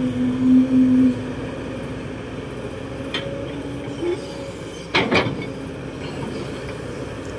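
Kobelco SK200-8 excavator's diesel engine and hydraulics running steadily as the bucket digs and curls a load of soil. A loud steady whine stops about a second in, and a sharp knock sounds about five seconds in.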